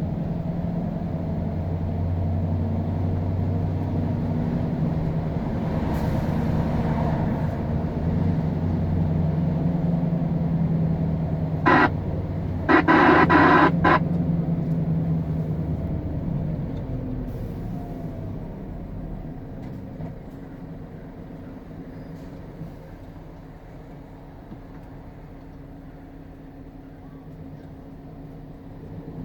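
Scania R520 V8 diesel engine pulling a heavy load, running steadily, then growing quieter a little past halfway. Two horn blasts cut through about midway, a short one followed by a longer one.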